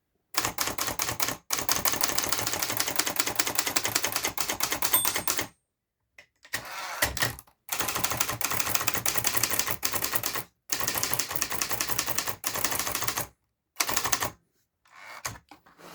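A 1973 Hermes Baby manual portable typewriter being typed on quickly. Fast runs of keystrokes and typebars striking the platen come in several bursts, separated by brief pauses.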